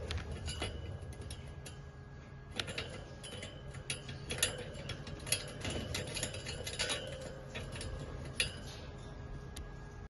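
Scattered light clicks and rattles of a wire bird cage as the lovebirds inside shift and grip the bars, with a few sharper ticks spread through and a low hum underneath.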